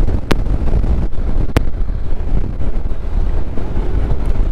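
Wind buffeting a motorcycle-mounted microphone over the low rumble of a Honda NC750X riding along a wet road, with two sharp clicks about a third of a second and a second and a half in.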